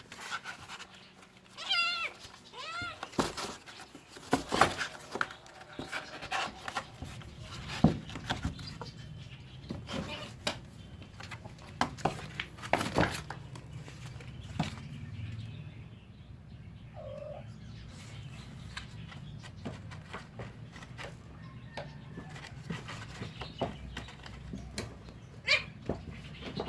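Cats meowing a few times, in wavering calls with the clearest near the start, among many sharp knocks and scuffles.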